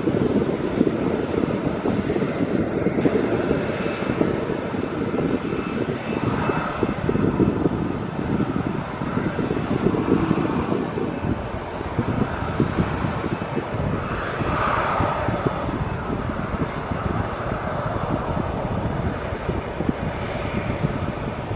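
An airplane's engines running loud and steady throughout, with faint tones drifting up and down in pitch over the rumble.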